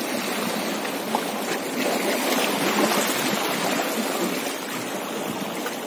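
Sea water washing against the boulders of a rock breakwater, a steady rushing noise.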